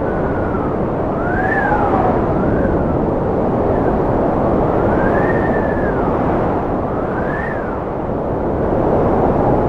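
Strong wind blowing: a loud, steady rush with whistling tones that rise and fall, several times over.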